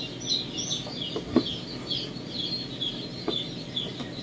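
Chicken chicks peeping steadily, a quick run of short falling peeps about three a second, with a few light knocks from eggs being handled in their trays.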